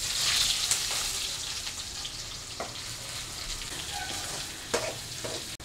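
Sliced onions hitting hot oil in a kadhai and sizzling. The hiss is loudest in the first second and then settles into a steady fry. A few short knocks come near the middle and near the end.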